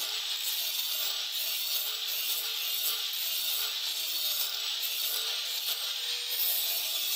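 Handheld angle grinder grinding the steel blade of a small talibong (jungle bolo), a steady grinding hiss over the motor's whine, which wavers slightly in pitch.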